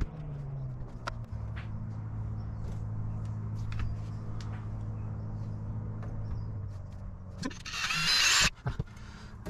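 Cordless drill spinning up briefly near the end, drilling a 1/16-inch pilot hole for a screw through a sheet-metal window screen cover. Before it there is a steady low hum.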